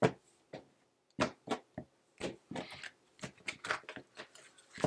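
A deck of tarot cards being cut into piles and set down on a tabletop: a dozen or so irregular taps and soft slaps of card stacks against the table and each other.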